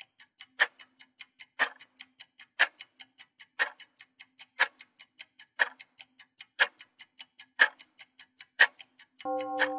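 Countdown timer's ticking-clock sound effect: a loud tick once a second with softer ticks between, about four ticks a second. Near the end a steady buzzer-like tone of several held notes comes in as the timer runs out.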